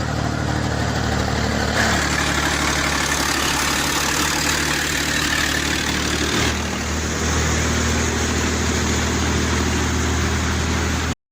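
Heavy truck's diesel engine running steadily, with a low hum and broad driving noise. The sound changes abruptly about 2 seconds in and again past the middle, then cuts off just before the end.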